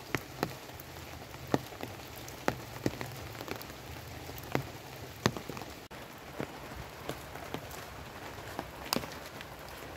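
Steady rain falling, with irregular sharp taps of single large drops landing close by. A brief dropout comes about six seconds in.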